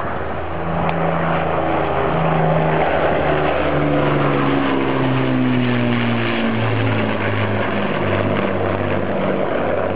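Avro Lancaster bomber's four Merlin V12 piston engines droning in a low flyby, their pitch sliding down through the middle as the bomber passes.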